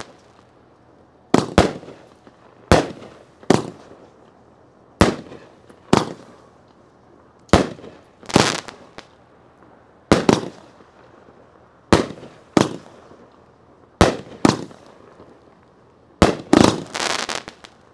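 Memory Fireworks Dakota Nightmare 500-gram firework cake firing shot after shot. Each sharp launch is followed within a second by the bang of the shell breaking overhead, about one shot every second and a half, with a quicker run of reports near the end.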